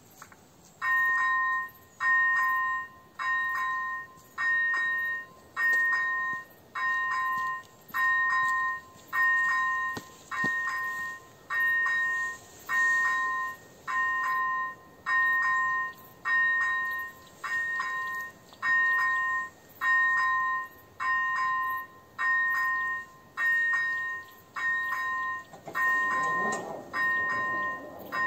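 Electronic warning bell of an AŽD 97 level crossing sounding, starting about a second in and repeating a two-tone electronic ding a little under once a second. It is the crossing's warning that a train is approaching, heard while the red lights flash and the barriers begin to lower.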